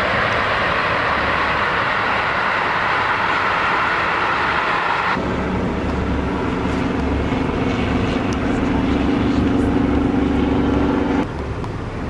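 Steady running noise aboard a river cruise ship underway: a rushing noise at first, then about five seconds in a steady droning hum with several pitches, which cuts off abruptly near the end.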